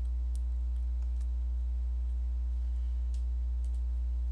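Steady low electrical hum in the recording, with a handful of sharp clicks at the computer scattered through it.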